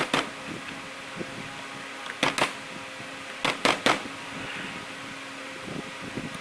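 A kitchen knife strikes a cutting board in a few short clusters of sharp knocks while onion and garlic are cut. An electric fan hums steadily underneath.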